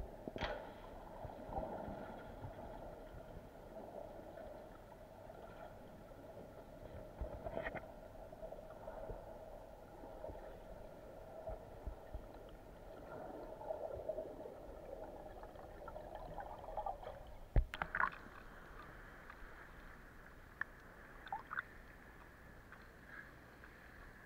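Faint gurgling, sloshing water over a low steady hum, with a couple of sharp knocks about three-quarters of the way through.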